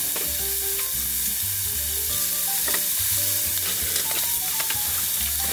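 Meat sizzling steadily as it grills, with a few spitting pops.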